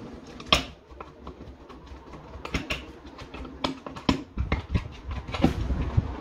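Irregular light clicks and taps of a plastic double wall-socket faceplate being handled and fitted against the wall box by hand.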